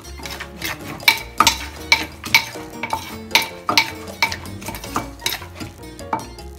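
Wooden pestle pounding rice noodles and chillies in a clay mortar: a quick series of knocks, about two to three a second.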